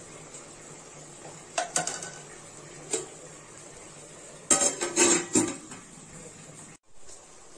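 A spatula clinking lightly against an aluminium cooking pot, then a flat metal lid clanking several times as it is set onto the pot, the loudest clanks coming about four and a half to five and a half seconds in.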